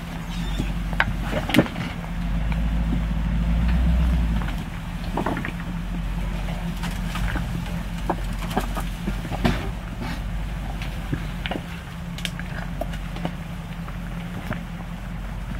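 Hummer H2's V8 engine running at low revs as it crawls over rocks. The engine grows louder for a couple of seconds about two seconds in. Scattered sharp knocks and clicks of stones sound throughout.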